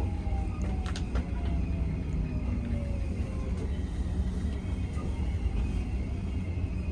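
Subway train running with a heavy low rumble, its electric motor whine slowly falling in pitch as the train slows for the next station. There are a couple of sharp wheel clacks about a second in.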